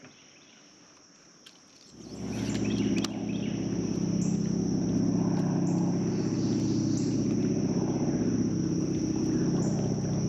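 A motor starts up about two seconds in and keeps running with a steady low hum, over a steady high-pitched insect drone.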